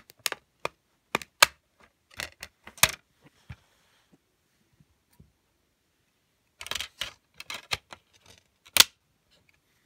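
Plastic DVD case clicking and clacking as it is handled and discs are pressed on and off the centre hub: a run of sharp clicks, a pause, then another run ending in one loud snap.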